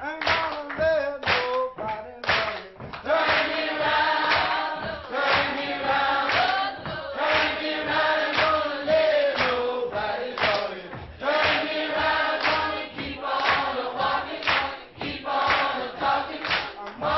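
Background music: a choir singing to a steady beat.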